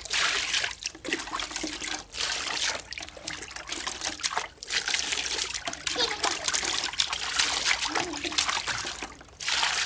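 Water splashing and sloshing in a plastic tub as two small children slap and stir it with their hands, in uneven bursts with short breaks.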